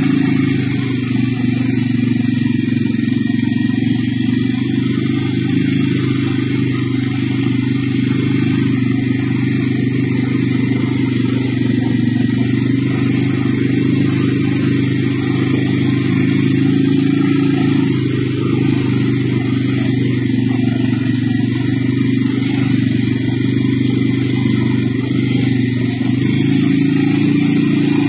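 CFMoto CF 600 ATV's single-cylinder engine running steadily while riding along. Its pitch starts to rise near the end as it speeds up.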